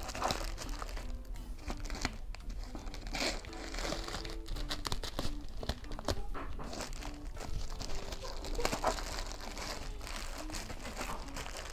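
Parcel wrapping crinkling and tearing as it is cut and pulled open by hand, in a run of irregular rustles and rips, over soft background music.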